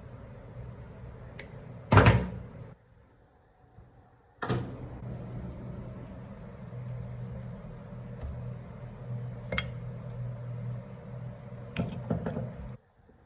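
Several sharp knocks and clicks, the loudest about two seconds in, over a steady low hum that cuts out abruptly twice.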